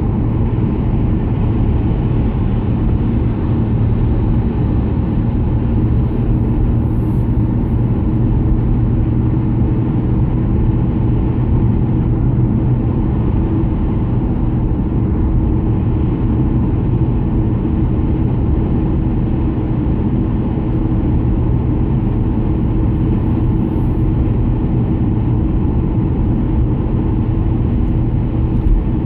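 Steady road and engine drone of a car at highway speed, heard from inside the cabin, with a constant low hum under the tyre noise.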